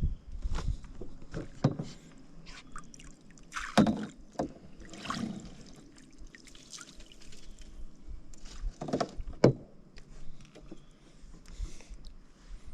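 Scattered knocks, clunks and light rustling of gear and hands moving inside a canoe, with a few sharper knocks about 4 s and 9 s in.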